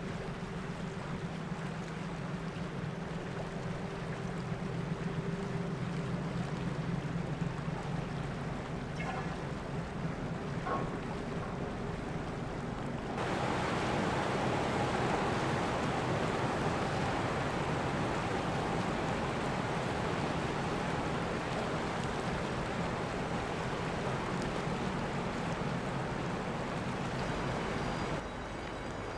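Great Lakes freighter's machinery running with a steady low hum. About halfway through, a louder rushing noise comes in suddenly and holds until it drops away abruptly near the end.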